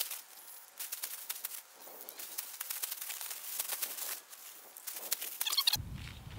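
Plastic bag smeared with wet spray paint crinkling and crackling as it is scrunched in the hand, in quick irregular crackles. Near the end the sound changes abruptly to a low, steady rumble.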